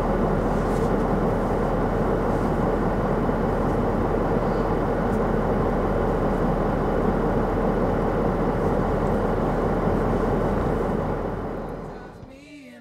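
Steady engine and road noise of a vehicle driving, heard from inside the cab; it fades out near the end.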